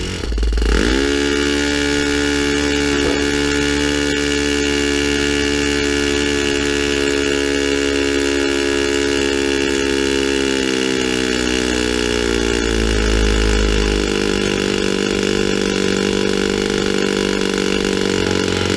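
O.S. FS-20 four-stroke model glow engine with a 9x5 beechwood propeller, spun up by an electric starter and catching within the first second, then running steadily at high speed. Its pitch sags slightly around ten seconds in and it runs rougher from about twelve seconds on.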